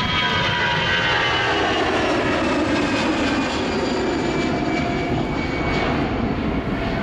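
Airbus A319's twin CFM56 turbofans at takeoff thrust as the jet lifts off and climbs away: a loud, steady jet rumble with whining fan tones that slide down in pitch as it passes.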